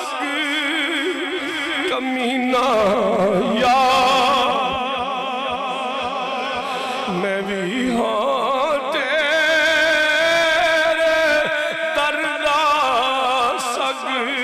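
A man's solo voice singing a naat, praise of the Prophet, in long ornamented held notes with a constant wavering vibrato, dipping to lower notes twice.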